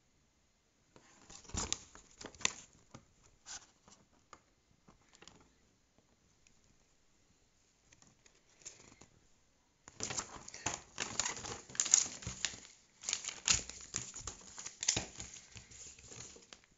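Paper rustling and crinkling as a printed instruction manual is handled: a few short scattered rustles in the first seconds, then a long stretch of dense crinkling from about ten seconds in.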